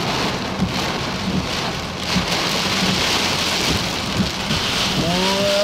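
Microburst downpour: heavy wind-driven rain hissing steadily, with a few sharp knocks of hail striking.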